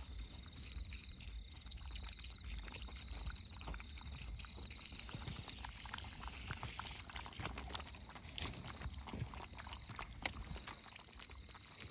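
Puppies lapping milk from a plastic lid, many small wet clicks, while milk is poured in from a plastic bottle. A faint high-pitched tone pulses steadily in the background.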